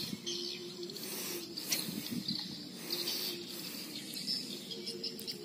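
Quiet outdoor ambience of insects chirring in repeated pulses, with a faint low hum that comes and goes.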